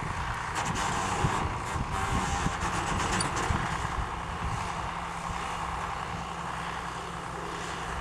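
John Deere 4430 tractor's six-cylinder diesel running steadily while it drives a New Holland 851 round baler, with the baler's machinery rattling along and a few light clicks in the first couple of seconds.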